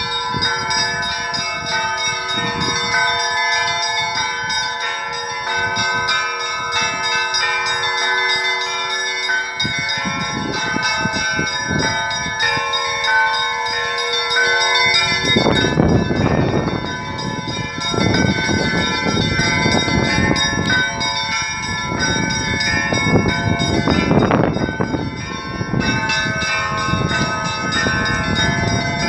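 A peal of Russian church bells ringing continuously, with quick strokes on the smaller bells throughout. Heavier, lower bell strokes come in about halfway through and again later, and these are the loudest moments.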